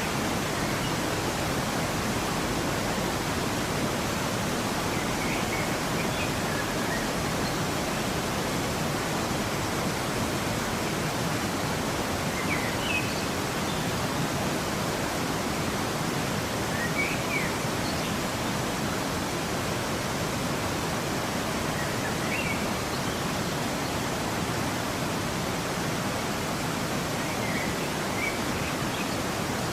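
Waterfall rushing steadily, with a few short bird chirps now and then.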